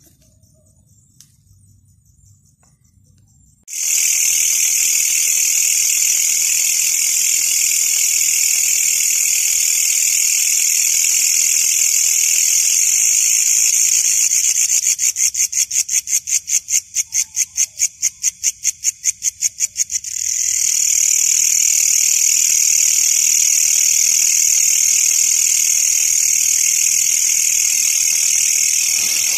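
Katydid singing very close: a loud, shrill buzz that starts suddenly about four seconds in, breaks into fast pulses for several seconds in the middle, then runs steady again.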